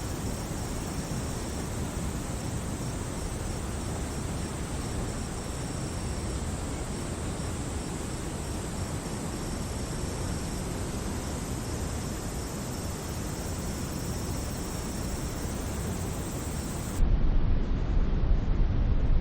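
Nature soundscape: a steady, even rushing noise with a faint broken high tone running through it. About 17 seconds in it cuts abruptly to a louder, deeper and duller rushing noise.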